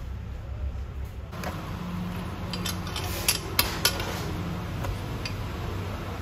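A long metal peel scraping and clinking against the hot pebble floor of a wood-fired clay oven as flatbread is worked on the stones, with a few sharp clicks three to four seconds in, over a low steady rumble.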